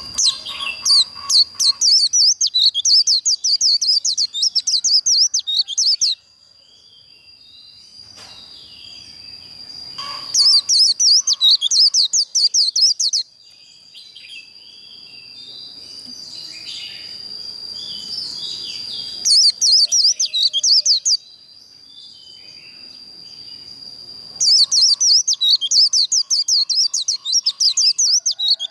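A white-eye (vành khuyên) singing its fast, continuous 'líu' warble in four bursts of a few seconds each, with short pauses between. A thin, steady high tone runs underneath.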